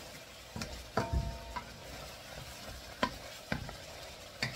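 Wooden spoon stirring chicken pieces in a steel wok, knocking and scraping against the metal several times over a steady sizzle from the cooking chicken.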